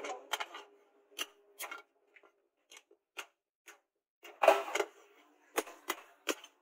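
Hand hammer striking a steel meat-cleaver blade on a steel post anvil: about a dozen sharp metallic strikes at an uneven pace, with a louder quick cluster a little past the middle.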